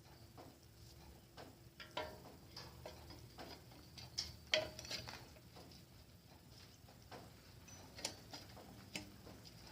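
Irregular light metallic clicks and taps of bicycle front-end parts (fork, bolt, washers) being handled and fitted, the sharpest about four and a half seconds in.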